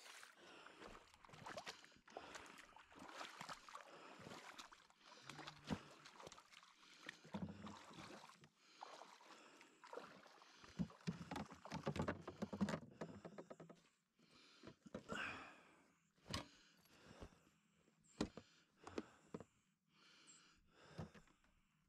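Faint irregular knocks, scrapes and rustles of someone moving about on a rocky lakeshore and handling paddles and gear beside a canoe. The clatter is dense for the first dozen seconds, then comes as separate knocks with short pauses.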